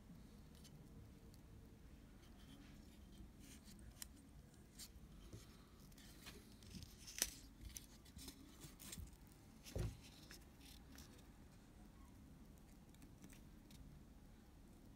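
Scattered small clicks and taps of hand tools working on a Leica II D camera's shutter, with one sharp click about seven seconds in and a dull knock near ten seconds.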